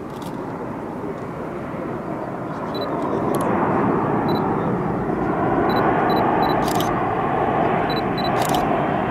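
A jet airliner's engines roar, growing louder and peaking a few seconds in. Several camera shutter clicks and short high electronic beeps sound over it.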